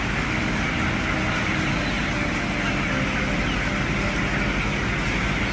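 Steady background din inside a broiler chicken shed: a dense, even noise with a low rumble underneath and a hiss above.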